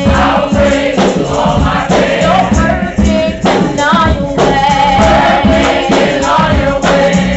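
Junior gospel choir of children singing together, over accompaniment with a steady beat.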